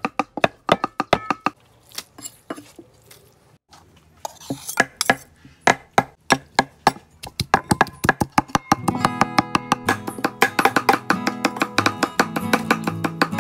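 Cleavers chopping beef tripe on wooden chopping blocks, quick sharp strokes at about three a second. About two-thirds of the way through, guitar music comes in under the chopping.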